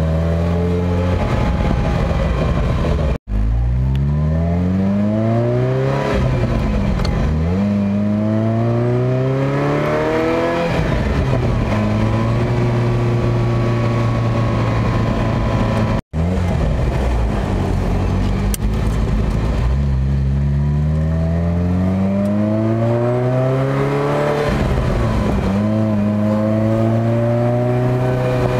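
Ferrari 308 GTSi's V8 through a stage-two Tubi exhaust, heard from inside the open-top cabin on the move. The engine note climbs in pitch several times as the car accelerates through the gears, falls back at each shift, and holds steady for a few seconds of cruising midway. The sound cuts out for a split second twice.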